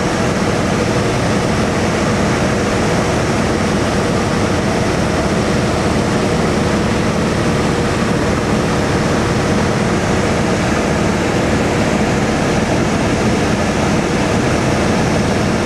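Cabin noise of a 1961 Piper Comanche in flight: its 180-horsepower four-cylinder engine and propeller running steadily at a constant, unchanging pitch with airflow noise over the airframe.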